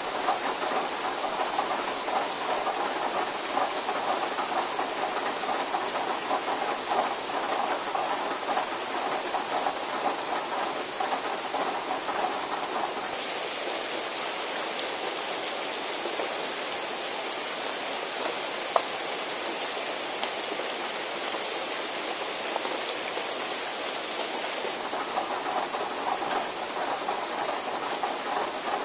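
Steady drizzle falling on leaves and ground, an even hiss that turns brighter for about ten seconds in the middle, with one sharp click a little after that change.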